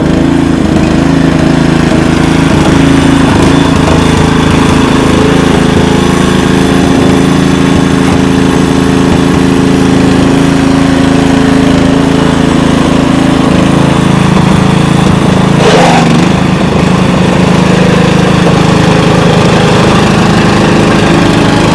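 Petrol lawn mower engine running steadily under load while cutting long, overgrown grass, which makes it smoke. About two-thirds of the way through there is a brief sharp sound and the engine note dips for a moment before steadying.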